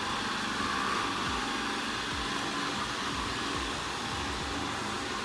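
Ecovacs Deebot N79W robot vacuum running steadily in its auto cleaning mode, a continuous whir.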